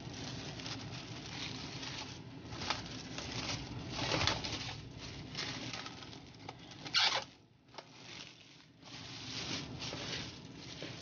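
Plastic cling film rustling and crinkling as it is pulled and stretched over a glass bowl, with the loudest crackle about seven seconds in.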